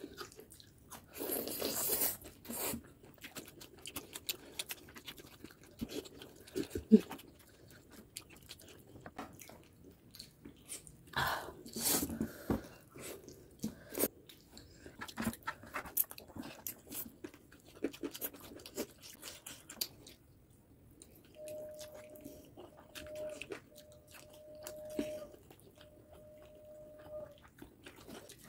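Close-up chewing and eating sounds of a meal of rice and curry: wet chewing with intermittent crunches and sharp clicks, the sharpest about seven seconds in. Near the end a faint steady tone sounds in four short stretches.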